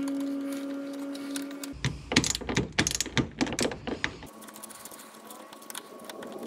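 Hand socket ratchet clicking in quick, uneven runs as it loosens the nuts holding the radiator, the clicks thinning out near the end. A steady hum is heard for the first second and a half.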